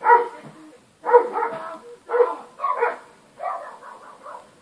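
Doberman barking, five barks in quick succession, roughly one a second.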